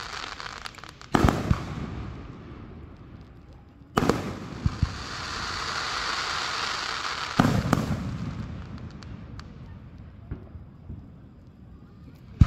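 Aerial firework shells bursting overhead: three loud bangs about three seconds apart and a fourth near the end, each followed by a long fizzing crackle from the falling glitter stars that slowly dies away, with a few small pops in between.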